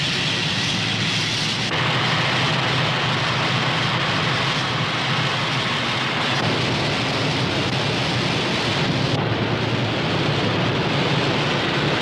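Newspaper rotary printing presses running at speed, printing from lead plates: a loud, dense, steady mechanical din with a low hum beneath. The sound changes abruptly about two seconds in and again about nine seconds in.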